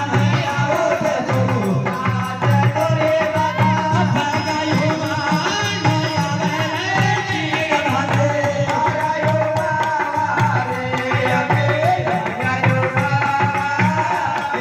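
Live folk music: hand-played frame drums keep a steady beat under a long, wavering melody line.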